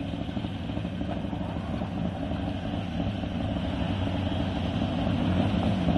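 Sprint car engine running at a low, steady speed with no revving, growing gradually louder as the car comes closer.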